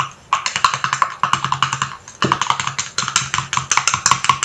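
A small metal utensil stirring thick cream in a stainless steel bowl: a rapid clicking and scraping of metal on metal, about ten strokes a second, pausing briefly about two seconds in.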